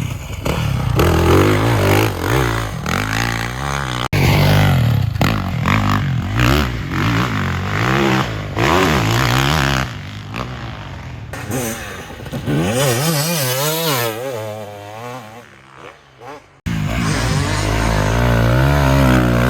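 Dirt bike engine revving up and down hard as it is ridden around the track, its pitch rising and falling with each throttle blip and gear change. There are a couple of abrupt cuts, and for a few seconds in the second half the engine sounds thinner and more distant.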